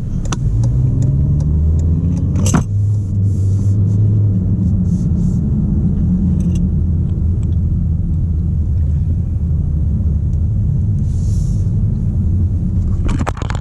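Toyota C-HR's 2.0-litre four-cylinder engine heard from inside the cabin under acceleration: its note climbs over the first couple of seconds, then holds a steady drone. A few sharp clicks and knocks are mixed in, and the sound drops away abruptly near the end.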